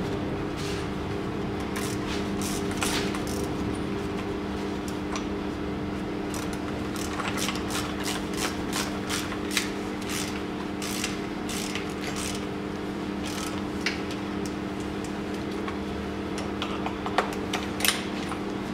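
Irregular clicks and small metallic knocks from a ratchet and hand tools as the compression tester is unscrewed from one cylinder of a VW 2.0 TDI diesel head and fitted to the next. A steady low multi-tone hum runs underneath.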